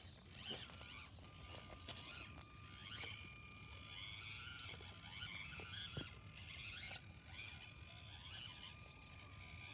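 Axial SCX24 micro RC crawler's electric drivetrain whining thinly and steadily, with scraping and gritty crunching as its tires climb over rock and dirt, and a few sharp clicks.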